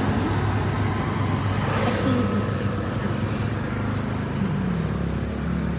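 A motor vehicle's engine running steadily with a low hum, its pitch dipping a few times in the second half.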